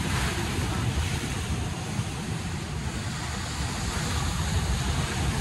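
Sea waves breaking and washing over shoreline rocks, with wind buffeting the microphone as a low rumble. A wave crashes at the start.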